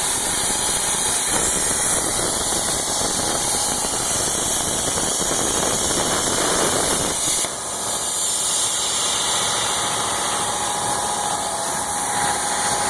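CNC plasma torch cutting steel plate: a steady, loud hiss of the arc and compressed air. About seven and a half seconds in there is a brief crack, and the hiss drops a little in body before running on.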